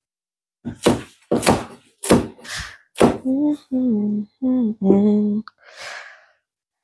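A person's voice in short sung syllables: a few sharp breathy sounds first, then several held notes that step up and down in pitch, ending in a breathy hiss.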